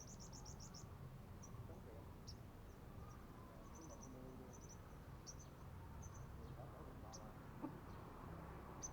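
Sunbirds calling with thin, very high chips: a quick run of about seven notes at the start, then scattered single chips and short trills, over faint steady background noise.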